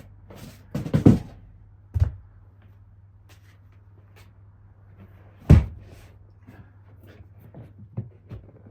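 Hard plastic rifle case being handled: a few hollow knocks and thuds, a double one about a second in, another a second later, and the loudest about five and a half seconds in.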